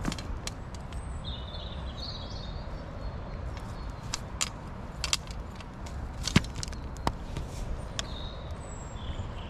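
Wind rumbling on the microphone, with scattered sharp clicks and knocks from handling a landing net and fishing rod, the loudest about six and a half seconds in. Faint high chirps come around two seconds in and again near the end.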